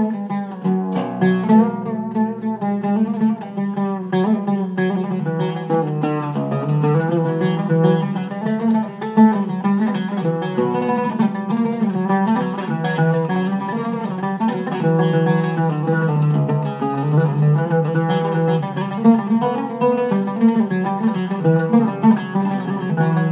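Iraqi-style Zeryab oud with a cedar soundboard and rosewood back, played solo: a quick, continuous melody of plucked notes. A low string keeps sounding underneath for the first few seconds.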